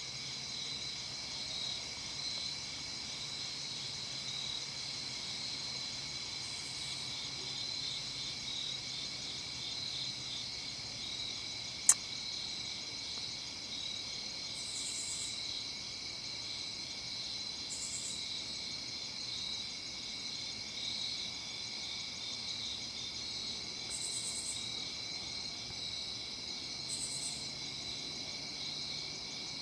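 Night-time insect chorus: several steady trilling tones at different pitches, with about five short, higher-pitched bursts of calling from another insect coming and going. A single sharp click about twelve seconds in.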